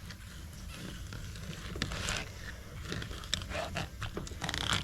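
Short, scattered scraping and wet handling sounds of a knife working through a salmon fillet, with a few soft scrapes around two seconds in and several more near the end.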